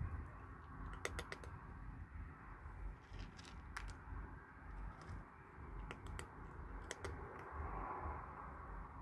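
Kittens crunching dry cat kibble: scattered sharp crunches and clicks, a quick run of several about a second in and more every second or two after, over a low background rumble.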